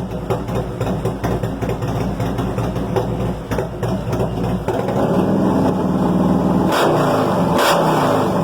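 Harley-Davidson Road Glide's 124-cubic-inch V-twin running hot at idle, the engine note rising and growing louder about halfway through, with two sharp bursts of throttle near the end.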